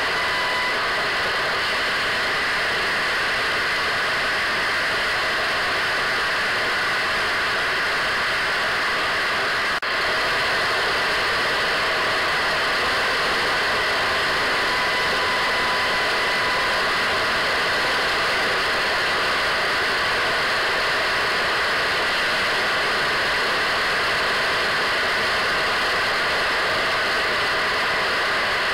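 Radio static: a steady hiss like an untuned radio, with a brief break about ten seconds in.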